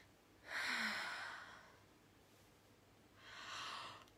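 A person sighing: a loud breathy exhale about half a second in, with a brief touch of voice at its start, then a softer breath about three seconds in.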